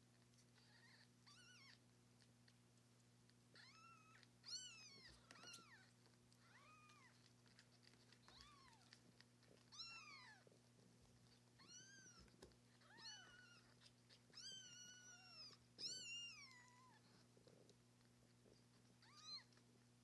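Week-old kittens mewing over and over: thin, high cries, each rising and then falling in pitch, some overlapping. This is newborn kittens waking and calling to be fed. A faint steady low hum runs underneath.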